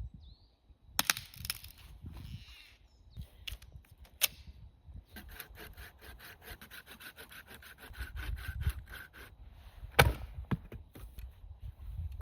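Dead wood being worked by hand: sharp knocks of sticks on wood, the loudest near the end, and in the middle a few seconds of fast, even rasping strokes on wood, several a second.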